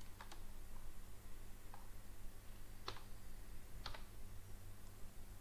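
A handful of separate clicks from a computer mouse and keyboard: a close pair at the start, a faint one in the middle, and two sharper ones about three and four seconds in. A steady low electrical hum lies underneath.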